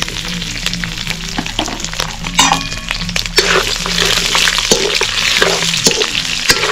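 Pork pieces sizzling in hot oil in an iron wok while a metal spoon stirs them, scraping and clicking against the pan. The sizzle grows louder about halfway through as the meat is turned.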